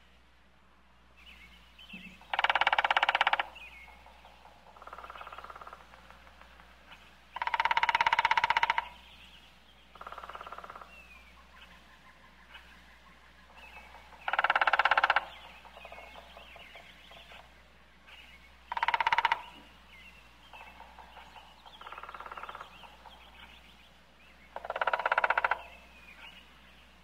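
Woodpecker drumming on wood: five loud rolls of rapid strikes, each about a second long and several seconds apart, with fainter, shorter rolls in between.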